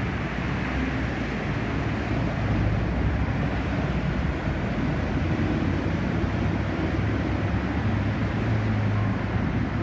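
Steady rumble of road traffic on a busy city street, an even wash of engine and tyre noise with no single vehicle standing out.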